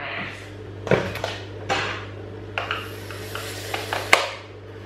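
Kitchen clatter: a handful of sharp knocks and clinks as utensils are handled and the metal beaters are pushed into an electric hand mixer, a loud click near the end as a beater snaps into place. A steady low hum runs underneath.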